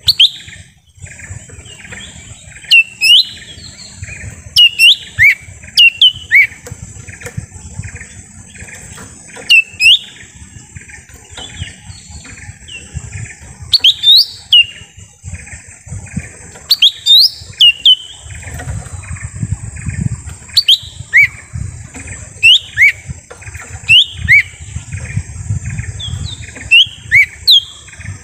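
Lesser green leafbird (cucak ijo mini) calling: loud, sharp whistled notes that sweep quickly up or down, often in twos or threes, repeated every second or two.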